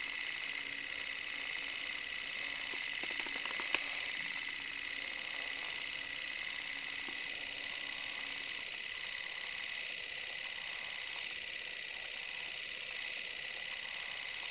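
A steady, even hiss, strongest in the upper-middle range, with a single sharp click almost four seconds in.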